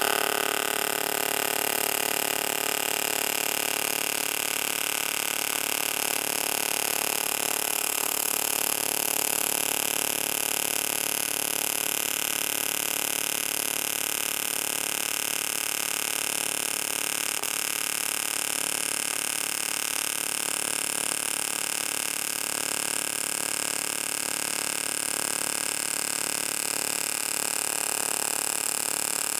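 AC TIG welding arc on 16-gauge 6061 aluminum from a small portable inverter TIG welder, run at about 60–70 amps and about 100 Hz AC frequency: a steady, even fluttering buzz that holds without a break.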